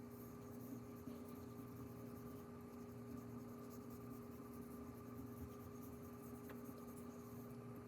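Faint, continuous scraping of a carbon-steel santoku blade being stroked back and forth over a wet natural whetstone with slurry. A steady low hum runs underneath.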